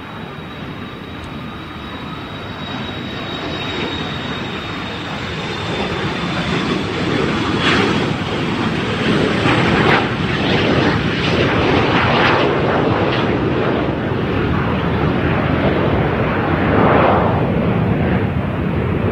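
Private jet's engines at takeoff power, the noise building over the first several seconds and then staying loud. A thin high whine slowly drops in pitch and fades out partway through.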